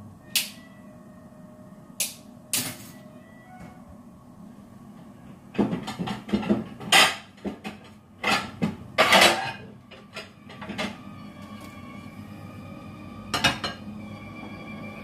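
Crockery and cutlery clattering: a few sharp clinks, then a run of loud clanking and rattling in the middle, and one last clink near the end, as a china plate is set out by the stove.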